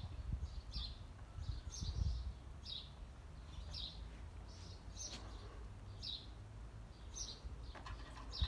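A bird chirping over and over, short high notes about once a second, over a low steady rumble. Near the end comes a brief splash of water as a dog dips its muzzle into the tub.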